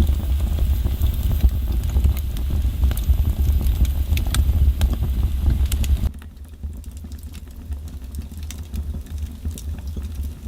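Wood-stove fire crackling with scattered sharp clicks over a steady low rumble. About six seconds in the rumble drops abruptly to a quieter level, while the crackles go on.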